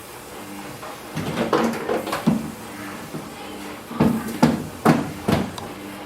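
A series of sharp knocks and thuds in two clusters: a few about a second in, then a quicker run of four or five near the end.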